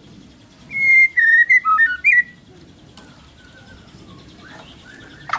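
White-rumped shama singing: a loud phrase of clear whistled notes that jump and slide in pitch for about a second and a half, followed by a few softer notes. A sharp click near the end.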